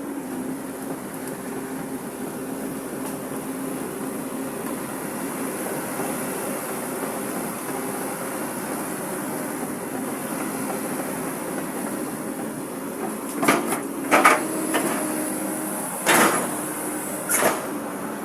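Excavator's diesel engine running steadily with a low, even drone. Four sharp clanks come in the last few seconds.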